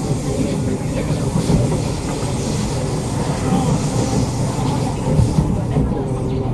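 Inside a Kawasaki Nippon Sharyo C751B metro car running at speed: a steady rumble of wheels on rail mixed with traction motor hum. About midway another train rushes past on the adjacent track, and the higher hiss drops away near the end.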